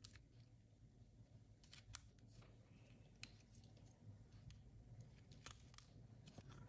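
Faint, scattered clicks and taps of small tools and plastic parts being handled during a mobile phone's disassembly, over a low room hum.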